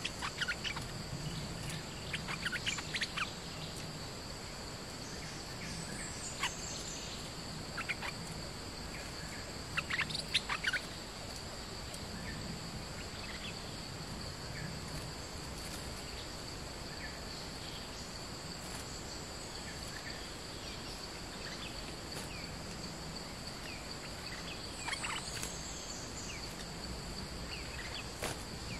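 Stripe-throated bulbuls giving short bursts of calls, a few here and there and loudest about ten seconds in, over a steady high-pitched drone of cicadas or crickets.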